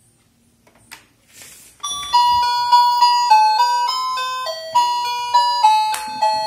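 Children's toy learning laptop playing a beeping electronic melody of stepped notes, starting about two seconds in after a click.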